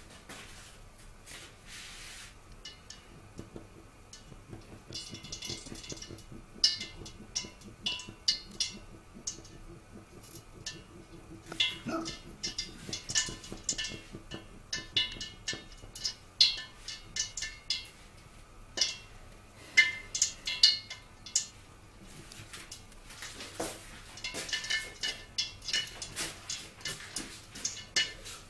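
Irregular sharp pops and clicks, coming in clusters, from water and oil heating together in a lidded wok over a low flame.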